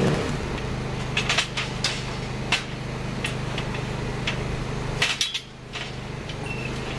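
Workshop sounds from TIG welding a steel bicycle frame: a steady electrical hum with scattered light metallic clicks and taps. The hum cuts out for about half a second a little after five seconds in, around a small cluster of clicks.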